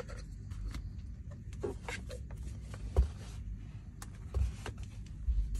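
Handling noise from plastic hair-dryer attachments: a series of light clicks and knocks with some rubbing as the parts are picked up and set down on a tray. The loudest knock comes about three seconds in.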